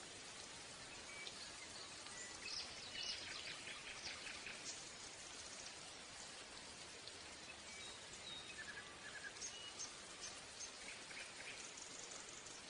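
Chicken burger patties sizzling faintly in oil in a nonstick frying pan, with small crackles and spits scattered through the hiss.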